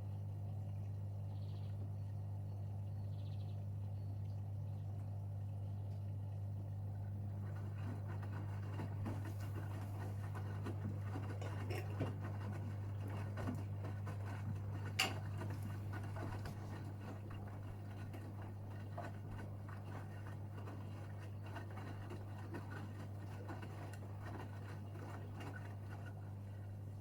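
Gorenje UseLogic 65165 washing machine's drain pump humming steadily. About seven seconds in, a crackling, gurgling rush of water joins it, with scattered clicks and one sharp click about halfway through.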